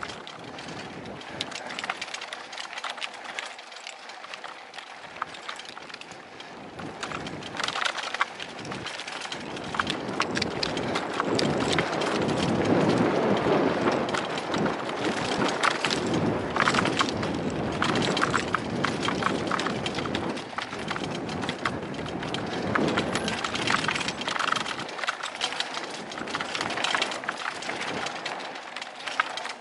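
Hardtail fat-tire e-bike rolling fast down a rough dirt singletrack: tyres crunching over dirt and rock, with a steady clatter of rattles and knocks from the bike. It grows louder about a third of the way in, as the speed picks up.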